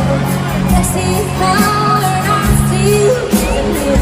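Live country band music with singing, an amplified concert performance.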